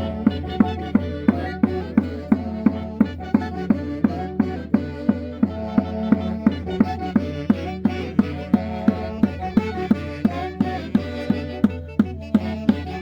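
Andean 'Caña y Quinto' festival music from a traditional band: a drum beats steadily about three times a second under a sustained melody played on several instruments.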